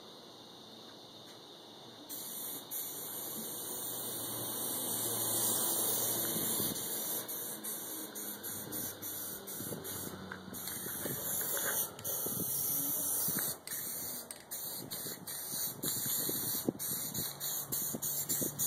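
Aerosol spray-paint can hissing in long sprays of black paint, with short breaks between passes. The spraying starts about two seconds in.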